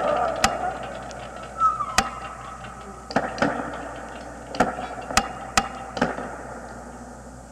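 Sharp knocks at uneven intervals, about eight of them, over a ringing sound that fades away.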